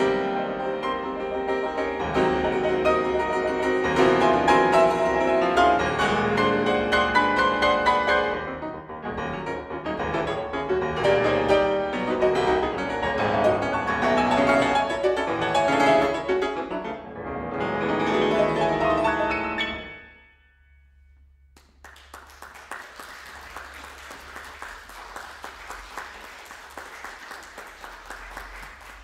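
Grand piano playing the closing bars of a solo classical piece, stopping about two-thirds of the way through and ringing away. After a moment of near quiet an audience applauds.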